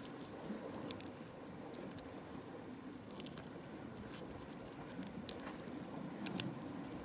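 Steel forceps gripping and prying gooseneck barnacles off a rock: scattered sharp clicks and crunches of shell and metal, over a steady low background rush.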